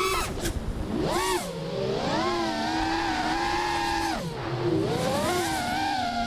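FPV racing quadcopter's brushless motors and props whining, heard from the onboard camera, the pitch swooping up and down again and again with the throttle: a sharp rise near the start, a held high note through the middle, a drop about four seconds in, and another steep climb near the end.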